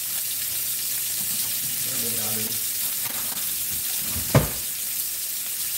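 Snapper fillets and Brussels sprouts frying in oil with a steady sizzle, while a utensil stirs the sprouts in their pan. One sharp knock about four seconds in.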